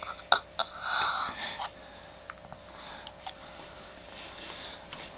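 Eating sounds close to the microphone: chewing with a few small sharp clicks in the first couple of seconds, then faint scattered ticks.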